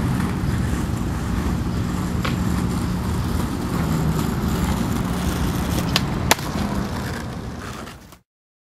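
Skateboard trucks grinding along a granite ledge: a steady rough scraping rumble with a few sharp clacks, the loudest about six seconds in. It fades and cuts to silence about eight seconds in.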